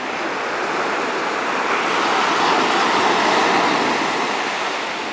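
Surf breaking on a sandy beach: an even rush of waves that swells to its loudest a couple of seconds in and eases off near the end.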